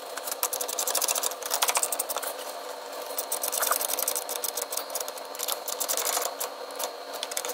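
Small hand ratchet clicking in quick runs, stroke after stroke, as a socket drives a threaded bushing into a plastic intake manifold.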